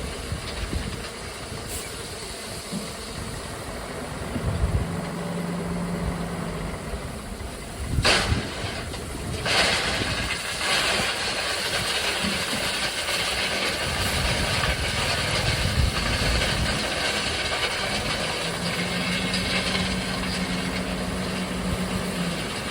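Heavy dump truck's diesel engine running steadily, with a low droning tone for a few seconds twice. About eight seconds in comes a short sharp burst of noise, then several seconds of rushing noise before it eases back to the engine alone.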